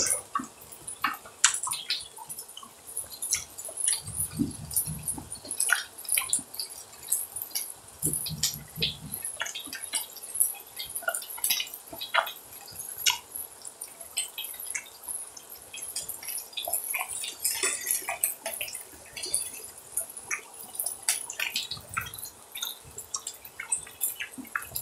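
Beef rib meat sizzling on a hot iron griddle plate: a steady hiss with irregular crackles and pops of spitting fat. A few soft low sounds come about four, eight and twenty-two seconds in.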